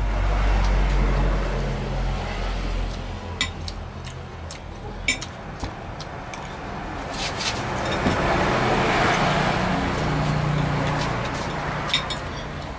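Motor vehicle traffic going past, its engine rumble loud at first, fading, then swelling again for a few seconds near the end. A few light clicks of utensils on a plate sound over it.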